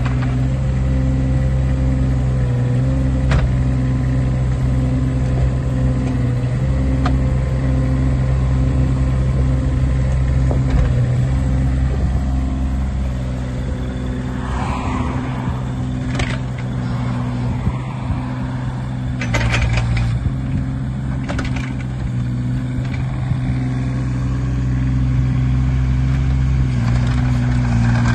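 Kubota KX016-4 mini excavator's three-cylinder diesel engine running steadily. Around the middle come scattered clanks and squeaks as the machine moves on its rubber tracks.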